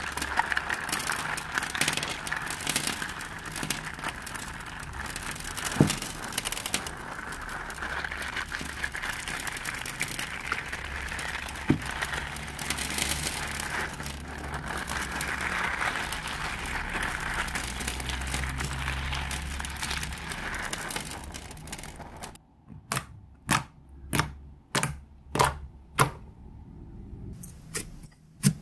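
Dense crunchy crackling as lavender crystals packed inside a red slime are squeezed, ground and pulled apart by hand. Near the end the crackle stops and gives way to a series of separate sharp pops, about two a second, as fingertips press into thick black glitter slime.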